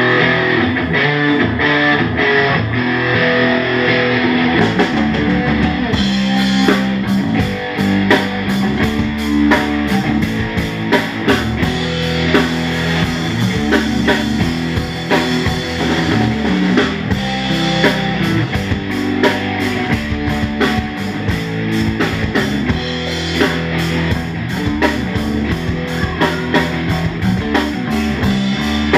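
Live instrumental rock band of electric guitar, electric bass and drum kit playing. Cymbals and a steady beat come in about six seconds in.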